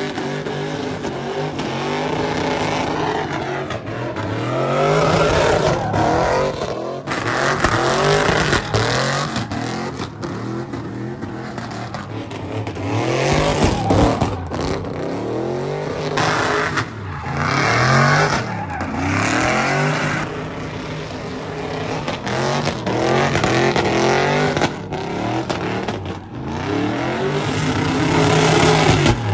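Chevrolet Silverado pickup doing burnouts and donuts: its engine revs up and falls back over and over while the spinning rear tires squeal and smoke.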